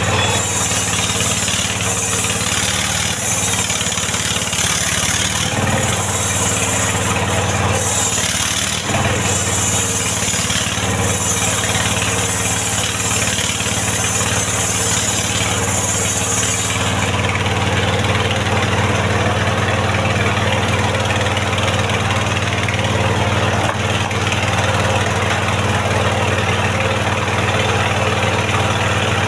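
Engine of a mobile circular-saw mill running steadily while the circular saw rips a mahogany log lengthwise, with a high hissing cutting sound. A little past halfway the cutting sound stops, and the engine runs on alone.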